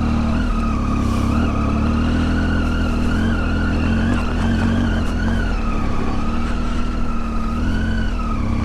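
Motorcycle engine running steadily, a low rumble with a whine above it that wavers slightly in pitch.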